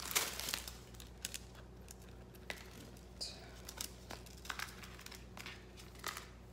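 Light crinkling and rustling of a small clear plastic bag and a paper jewellery card being handled, with scattered small clicks and taps. The rustle is strongest about the first half-second, then comes in short separate bits.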